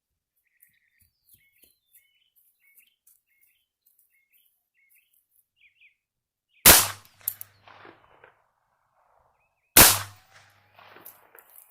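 Two .22 LR shots from a Bond Arms Roughneck derringer fitted with a .22 LR barrel, about three seconds apart, each followed by a short echo. Small birds chirp in short repeated notes before the shots.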